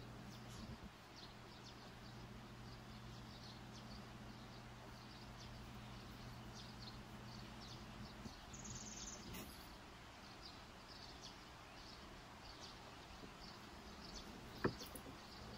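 Faint background noise with a low steady hum and many scattered faint high chirps, broken by one sharp click near the end.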